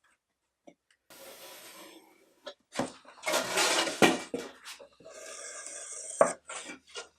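Glue being squeezed onto wooden scrap strips and the strips rubbed and set down on quarter-inch plywood: stretches of scraping and hissing, with a few sharp wooden knocks, the loudest about four seconds in.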